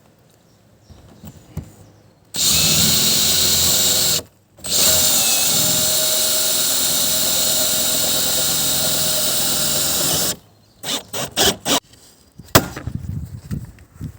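Power drill running in two long steady stretches with a short pause between, then several brief trigger bursts and a sharp knock near the end.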